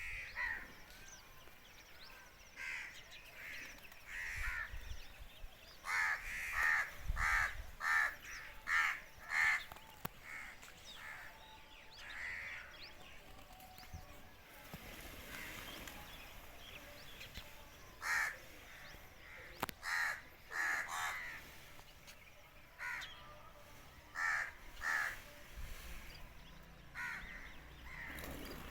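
Crows cawing: short harsh calls, some in quick runs of five or six, others scattered singly or in pairs.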